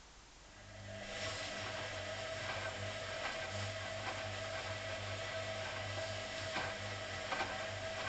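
Hoover CA232 front-loading washing machine starting up in its final rinse, with a steady low mechanical hum and water noise from the drum. It comes on about half a second in, then keeps running with a few faint clicks.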